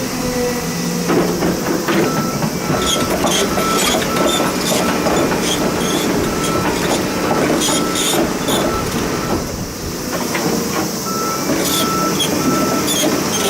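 Komatsu HB365 hybrid excavator running, with a warning alarm beeping steadily about once a second, pausing briefly near the middle. Metallic clicking and clatter from the machine sound throughout.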